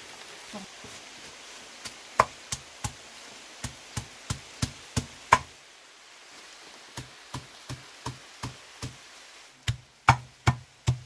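Knife chopping on a cutting board: runs of sharp knocks, about three a second, with a short pause in the middle and a few louder strokes near the end.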